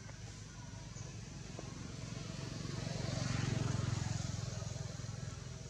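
A motor vehicle passing by: its low engine rumble grows louder, peaks about halfway through, then fades away.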